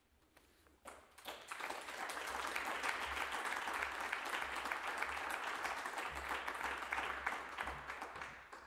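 Small audience applauding, the clapping rising about a second in and dying away near the end.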